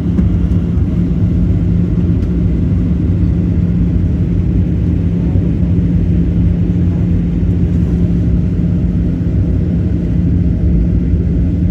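Airliner engines running with a steady low rumble and a constant low hum.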